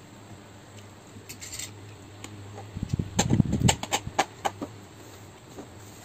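Fork and spoon clicking and scraping against a food tray while cutting fried chicken and scooping instant noodles, with a quick run of clicks about three to four and a half seconds in.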